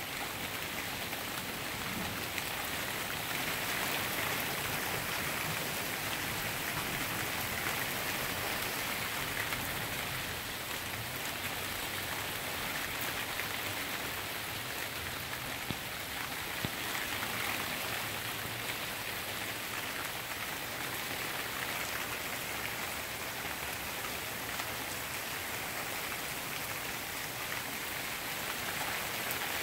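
Steady rain falling on lawns, trees and pavement, a continuous even hiss with a few louder drop taps close by.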